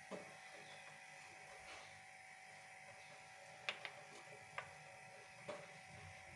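Near silence: a faint steady hum with a few light clicks and taps, about four of them spread through the middle and later part.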